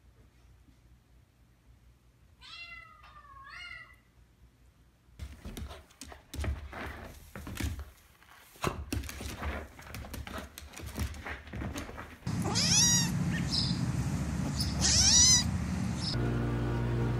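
A kitten mewing: two loud, high-pitched cries near the end that sweep sharply upward. Before them come fainter calls, then a stretch of scratchy rustling and clicks.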